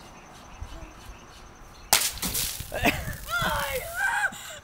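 A shaken plastic soda bottle thrown onto asphalt bursts with a loud bang about two seconds in, followed by a hiss of spraying soda and excited shouting.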